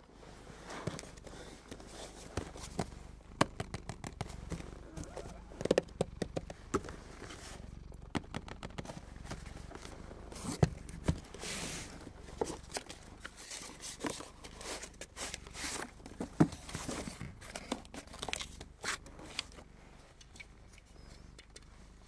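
Close-miked handling of a small cardboard box and small objects: crinkling and rustling of card and paper, broken by many sharp clicks and taps.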